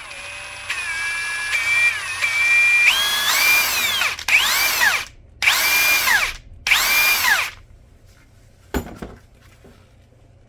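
Mastercraft 40V Maximum cordless impact wrench running free in reverse with no load: a steady motor whine whose pitch steps with the trigger, rising about three seconds in. Then come three short trigger pulls, each spinning up and winding back down. A single click comes near the end.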